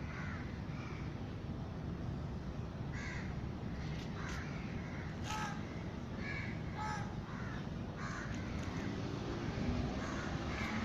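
Crows cawing, a series of short harsh caws repeated every second or so, over a steady low background rumble.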